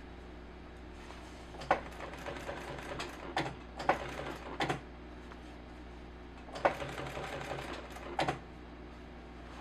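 Sewing machine with a programmable motor stitching a zipper onto a jacket in two short runs of rapid, even needle strokes. Each run starts and stops with a sharper click.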